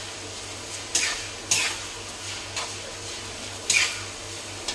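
Fish stomachs stir-frying in a pan in garlic fish sauce, sizzling steadily, with a spatula scraping the pan a few times.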